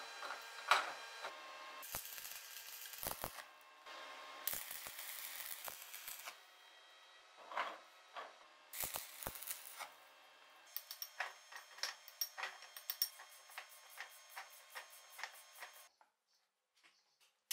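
Electric arc welding on steel in short bursts of crackling hiss, laying welds on a new hex nut for a leg vise's screw box, with sharp ticks between bursts. A longer run of quick crackling ticks comes later and stops abruptly before the end.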